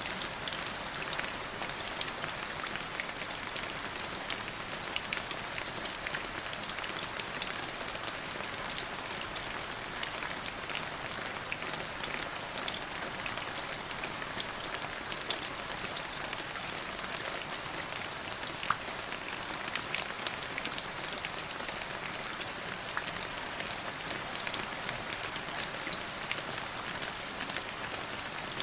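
Rainstorm: steady rain falling, with many sharp drop hits scattered through it.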